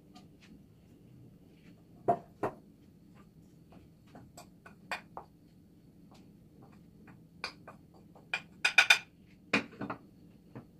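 Kitchenware clinking and tapping: scattered sharp clicks and knocks of dishes and utensils, with two louder knocks about two seconds in and the loudest cluster near the end.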